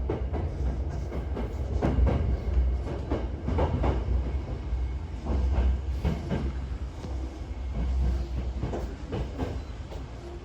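Toyo Rapid Railway electric train running on the rails: a constant low rumble with irregular wheel clatter, and a faint steady tone near the end.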